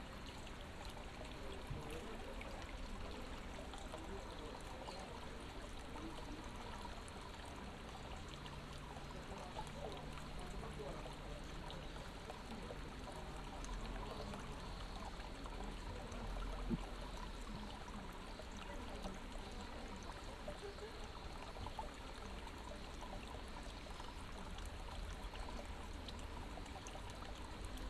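Water running and trickling steadily, as from a stream or roadside channel, with one short knock about 17 seconds in.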